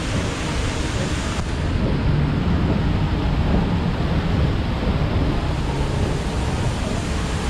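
Steady rushing noise with a heavy low rumble, from water falling down a stone wall fountain mixed with wind buffeting the microphone. The hiss dulls a little about a second and a half in.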